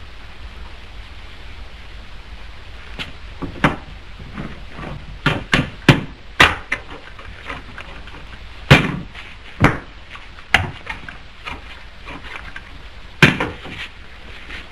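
Irregular sharp wooden knocks and clacks of a pool cue against a billiard table, about a dozen, the loudest around the middle, over the steady hiss of an old film soundtrack.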